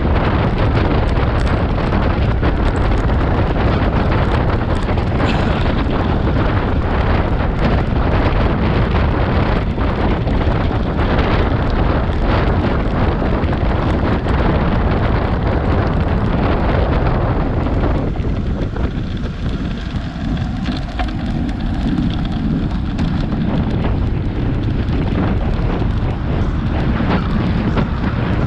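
Wind rushing over a bike-mounted camera's microphone while a road bike races at about 25 mph. The rush eases for several seconds about two-thirds of the way through, then comes back.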